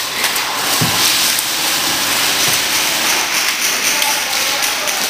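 Airsoft electric guns firing in a large hall, a dense patter of rapid ticks from the shots and BBs striking surfaces.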